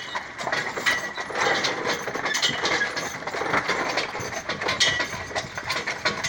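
Horse-drawn carriage rolling along behind a two-horse team: a dense, irregular rattle of clicks and knocks from the wheels and wooden body.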